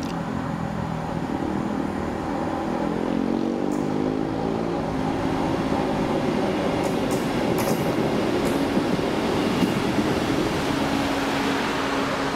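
Class 158 diesel multiple unit with Cummins engines arriving into the platform and drawing past close by, growing louder. The engine note shifts downward through the first half and settles into a steady hum near the end, with a few brief metallic clicks from the wheels as it passes.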